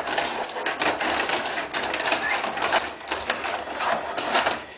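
Rod-operated table hockey game in rapid play: a continuous fast clatter of rods sliding and spinning, player figures rattling and the puck clacking off sticks and boards.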